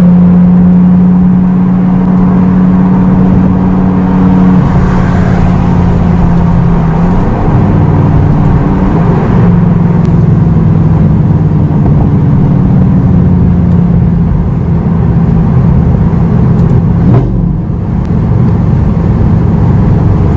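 Lamborghini Gallardo LP560-4's V10 running through an Armytrix valved exhaust with the valves open, heard from inside the cabin while driving: a loud, steady engine note that steps in pitch a few times, with a brief drop in level about three-quarters through.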